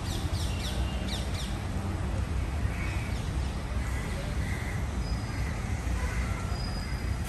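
Crows cawing faintly a few times, with short high bird chirps in the first second or so, over a steady low rumble of city traffic.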